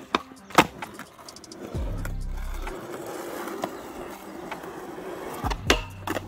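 Skateboard wheels rolling over rough asphalt, with a sharp clack of the board about half a second in. Near the end come a few loud clacks as the board hits the low metal flat rail for a backside boardslide.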